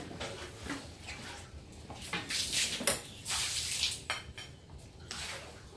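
Hot beef noodle soup being eaten from ceramic bowls: light clinks of a spoon and chopsticks, and three short breathy bursts about two, three and five seconds in.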